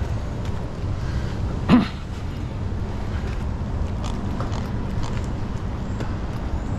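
Steady low rumble of city traffic with faint footsteps on concrete. A short vocal sound rising in pitch, like a grunt at the top of a climb, stands out about two seconds in.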